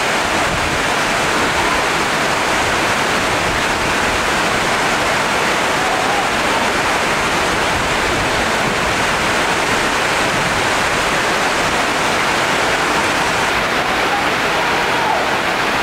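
Steady, loud hiss of heavy rain pouring down.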